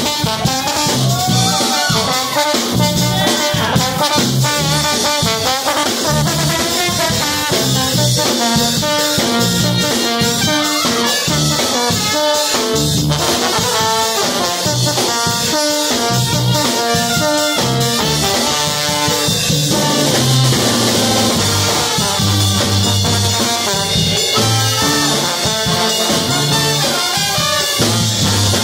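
Live brass band playing: a sousaphone bass line pulsing in short notes under trombone and trumpet lines.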